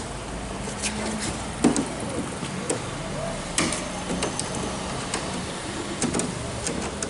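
Workshop background: scattered knocks and clicks, sharpest about a second and a half in and again near the middle, over a steady low hum, with faint voices.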